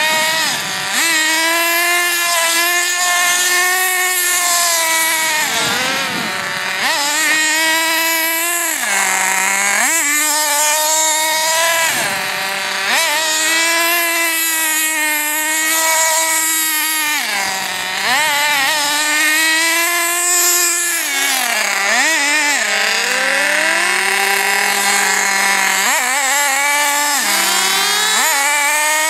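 Small nitro glow engines of RC buggies running with a high-pitched whine, revving up and down again and again as the cars are driven, and dropping back to a steady idle several times. The engines are being warmed up.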